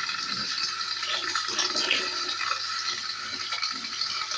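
Kitchen tap running into the sink while raw chicken pieces are rinsed under it, with scattered small irregular knocks and splashes from the handling.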